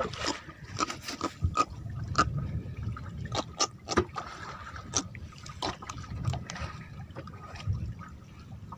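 Water lapping and slapping against the hull of a small open boat at sea, with irregular sharp clicks and taps, a few per second.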